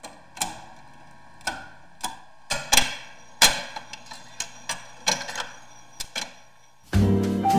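1951 Seeburg Select-O-Matic jukebox: its selection buttons pressed and the record-changing mechanism clicking and clunking at an irregular pace as it fetches the chosen disc. Near the end the record starts playing: bossa nova music.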